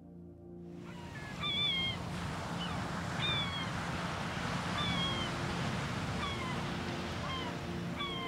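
Sea surf washing on rocks, fading in about a second in, with gulls giving short, falling mewing calls every second or two.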